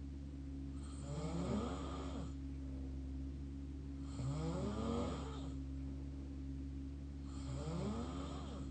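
Open-mouth snoring: three long snores about three seconds apart, each with a pitch that sweeps up and down, over a steady low hum.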